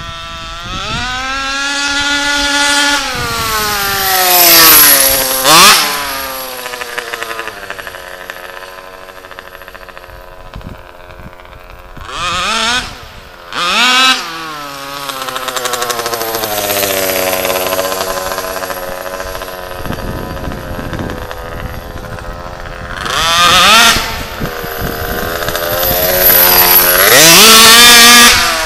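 HPI Baja RC car's RCMAX 90cc two-stroke petrol engine making high-speed passes: it revs up through the gears of its pitch, then drops sharply in pitch as it goes by, several times over, easing off between runs.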